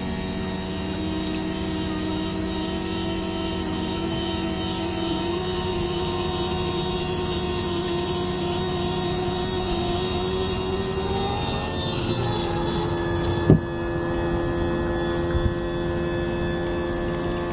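Outboard motor's electric power-tilt pump motor running steadily with a whine as the outboard tilts up. Its tone shifts about twelve seconds in, and there is a single click shortly after.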